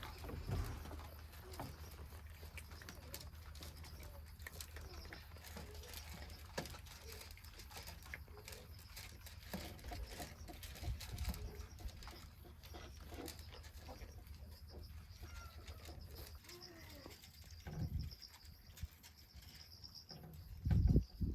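Faint animal calls, a few short curving cries, over a steady high-pitched drone and a low rumble that fades out about three-quarters of the way through, with a few louder low thumps near the end.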